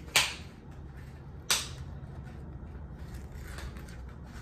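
Two sharp crackles of a toy blind pack's packaging being handled, just over a second apart.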